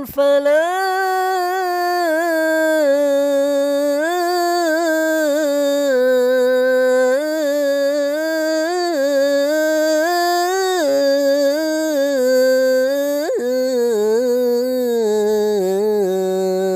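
A single voice chanting the adhan, the call to prayer, in maqam Jiharkah: one long melismatic line on the phrase "hayya 'ala al-falah", wavering in ornamented turns and settling lower near the end. It is recorded on an old phone, with no effects added.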